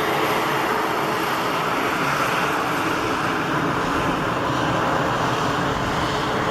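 Antonov An-12's four Ivchenko AI-20 turboprop engines running during its takeoff, a steady, even drone with no breaks.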